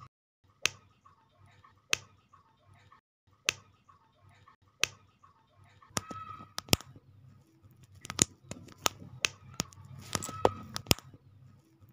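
Sharp plastic clicks and taps as the small parts of a building-block minifigure (head, helmet, arms) are pressed and snapped together, about one a second at first and coming closer together in the second half.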